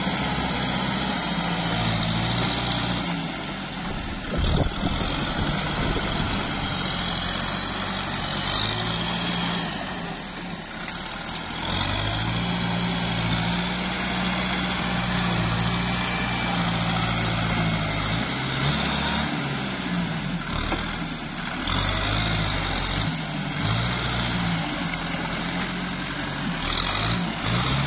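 Kubota farm tractor's diesel engine working under heavy load, its revs rising and falling, as the tyres churn through deep paddy mud and water. There is a brief thump about four and a half seconds in.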